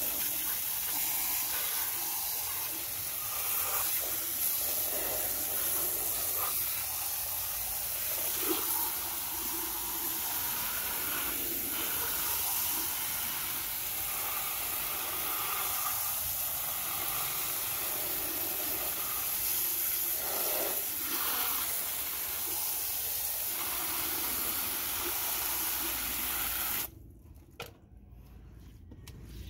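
Water jetting from a hose spray nozzle onto a plastic toy excavator, a steady hissing spray that washes off the mud. The spray cuts off suddenly a couple of seconds before the end.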